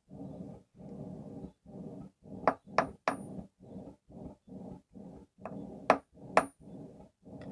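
Hand hammer striking hot steel on a stake anvil: three quick blows about two and a half seconds in and three more near the end, each giving a bright ringing ping. A steady pulsing rush, about two pulses a second, runs underneath.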